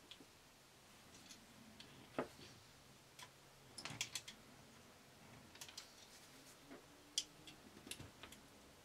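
Faint, irregular clicks and small taps of a screwdriver and fingers on a plastic inline switch as its terminal screws are worked, with a sharper click about two seconds in, a short cluster around four seconds and another sharp click a little after seven seconds.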